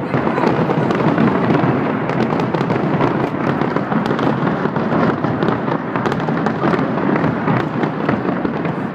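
Fireworks salute going off, many shells bursting in quick, overlapping succession into a dense, continuous crackle with no pause.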